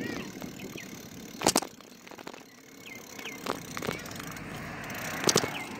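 Bicycle being ridden: a few sharp knocks and rattles, the loudest about a second and a half in and again near the end, over a rushing noise of tyres and wind that builds toward the end, with a few faint short high squeaks.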